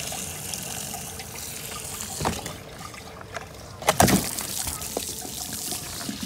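Water from a garden hose running into a plastic engine coolant reservoir, which is being flushed clean of old coolant gunk. About four seconds in, the reservoir is tipped with a couple of loud knocks, and water pours and splashes out onto the pavement.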